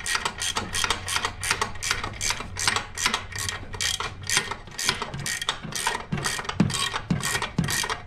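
Hand ratchet clicking steadily, about four or five clicks a second, as it backs out the rear engine mount bolt.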